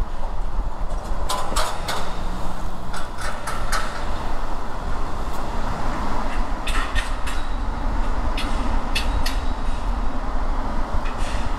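Car driving through city traffic: a steady low road and engine rumble, with scattered short clicks and knocks.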